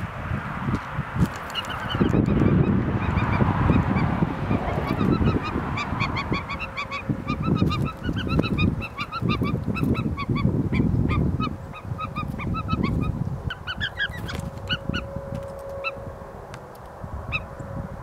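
A chorus of many birds giving short, repeated calls, densest through the middle and thinning near the end, over gusty wind rumbling on the microphone.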